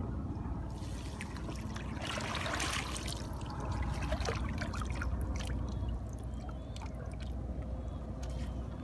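Water sloshing and trickling in a small glass tank of live fish, with a louder splashy spell about two seconds in and scattered small clicks.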